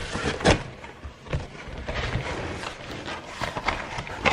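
Cardboard shipping box being opened by hand: packing tape and cardboard flaps rustling and scraping, with several sharp knocks.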